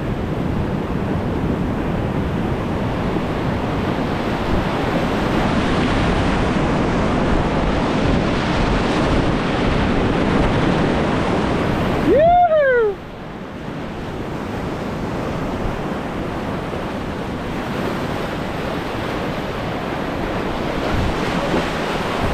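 Whitewater rapids rushing steadily around a kayak. About twelve seconds in there is a short whoop that rises and falls, and after it the water noise is suddenly quieter.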